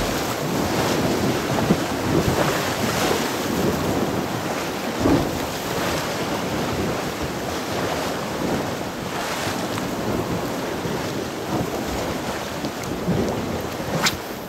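Choppy sea washing against the shore, with steady wind buffeting the microphone. A short sharp click near the end.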